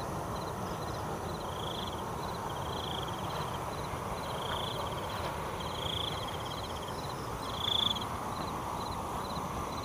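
Night insects calling: a thin high tick repeating about twice a second, and a louder pulsed trill every second or so. A low rustling hiss runs underneath.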